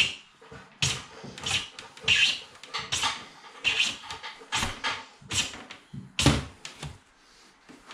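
Electrical cable being forced down through a tight gap behind a kitchen wall cupboard, scraping and rustling in short repeated pushes, about two a second, stopping near the end.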